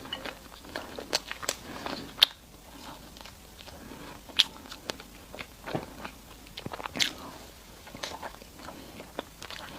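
Close-miked eating sounds: a person biting and chewing sweet food, with wet mouth noises and irregular sharp clicks and crackles, three of them standing out as louder snaps.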